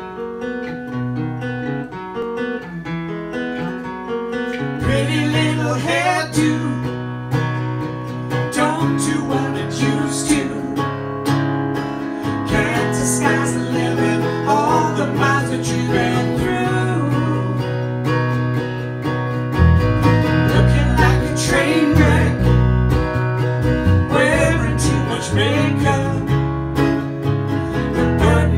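Acoustic guitar playing a song's instrumental intro; a low bass line comes in about five seconds in and grows heavier near the two-thirds mark.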